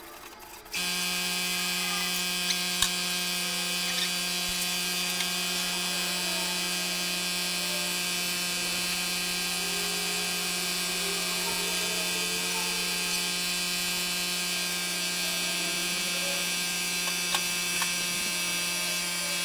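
An air compressor's motor starts abruptly about a second in and runs with a steady hum, under the hiss of a gravity-feed spray gun spraying paint. A few light clicks.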